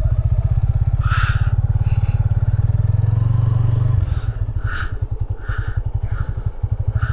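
Motorcycle engine running steadily while riding along, its note easing off about four seconds in. Several short, sharp, higher-pitched sounds come over it in the second half.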